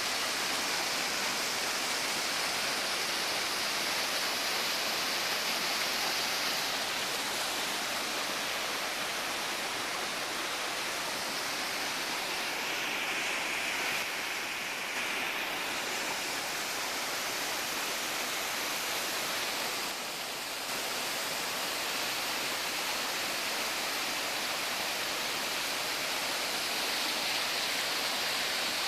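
Rushing water cascading over rocks: a steady, even rush of noise that dips slightly twice, about halfway and about two-thirds through.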